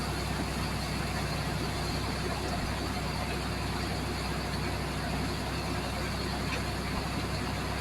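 Steady drone of a running engine under a constant rushing hiss from a high-pressure water jet hitting sand.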